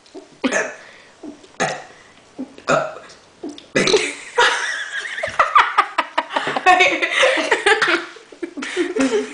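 A person burping the alphabet letter by letter: a few short separate burps, then a longer unbroken run of burped letters from about four seconds in.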